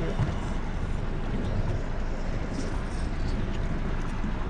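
Steady low rumble of a small fishing boat moving slowly: outboard motor running, mixed with wind and water noise.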